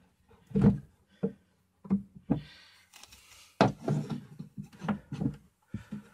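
Cut wooden garden stakes knocking and sliding against a particle-board file cabinet as they are pushed into place under it: a run of irregular wooden knocks and clatters, with a short scraping rub about two and a half seconds in.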